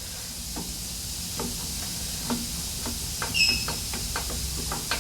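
Light, irregular clicks and knocks of parts and hand tools being handled during an engine teardown, with one brief squeak about three and a half seconds in, over a steady hiss.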